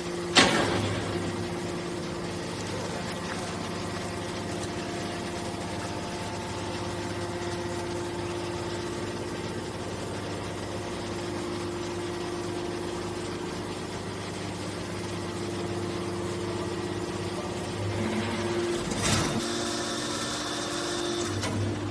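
Hydraulic scrap metal baler running with the steady hum of its motor and pump. There is a sharp bang about half a second in, and a louder rush of noise near the end.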